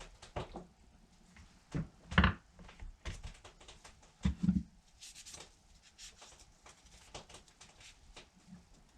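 Clicks and knocks of tools and small parts being handled on a chainsaw being taken apart, with a heavier thump about two seconds in and two more close together around four and a half seconds.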